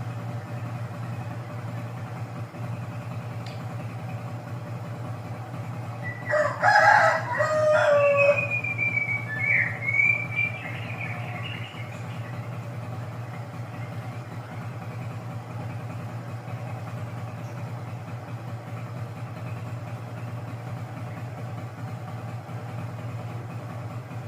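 A loud, drawn-out bird call of about two seconds, about six seconds in, falling at its end, then a few higher gliding calls, over a steady low hum.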